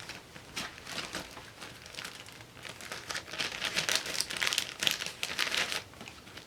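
Planner sticker sheets crinkling and rustling as they are grabbed and handled, the crinkling busiest in the second half.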